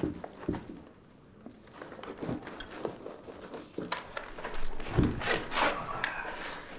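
Soldiers' clothing, webbing and rifles rustling and knocking as they move across a wooden floor, with scuffs and scattered knocks and one heavy thump about five seconds in.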